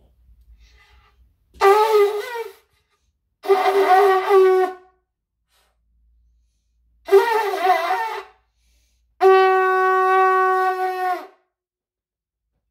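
A conch shell (shankh) blown by a child in four blasts, the first three short and wavering in pitch, the last longer and held steady.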